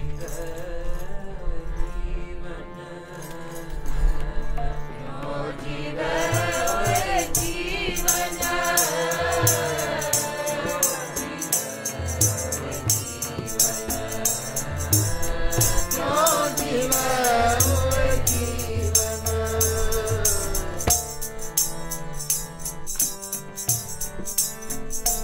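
Sikh keertan: a voice singing a shabad to harmonium and tabla. A rapid jingling percussion keeps the beat from about six seconds in, and the singing trails off near the end while the instruments play on.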